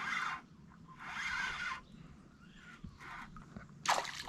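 A fishing reel being cranked in short spells, a dry whirring, with a stronger, clicky spell near the end.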